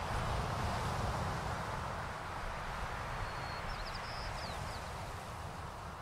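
Sea waves washing on a shore: a steady rushing that swells at the start and slowly eases off. About halfway through, a small bird gives a brief run of high chirps.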